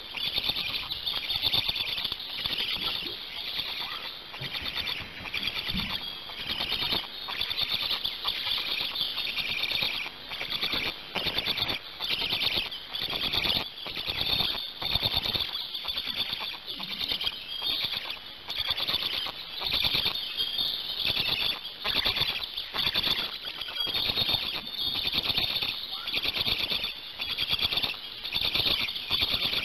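Black stork chicks giving their shrill, rapidly pulsing begging squeals without pause, with scattered short rustling knocks in the nest.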